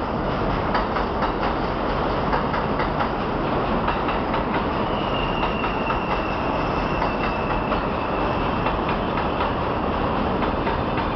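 R142A subway train running into an elevated station: a steady rumble of steel wheels on the rails with quick rail-joint clicks, and a faint high wheel squeal from about halfway through as it slows.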